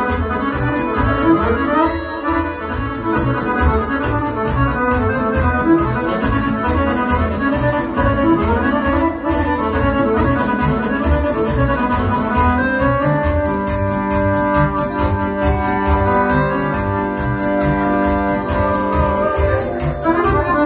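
Live band playing Balkan kolo dance music: a busy keyboard-and-accordion melody over a steady, even bass beat. About two-thirds of the way through, the melody settles into long held notes.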